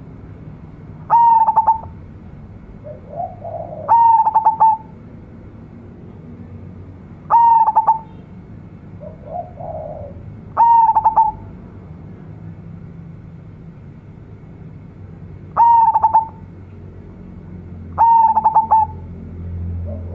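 Zebra dove (perkutut) singing its song: six loud, stuttering, rattling coo phrases, each under a second long and spaced a few seconds apart. Softer, lower coos fall between some of them.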